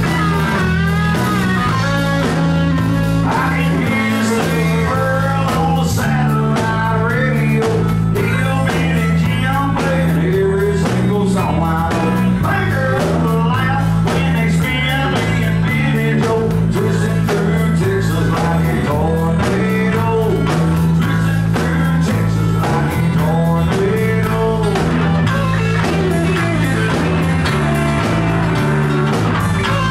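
Live outlaw country band playing loud and steady, with electric and acoustic guitars and drums.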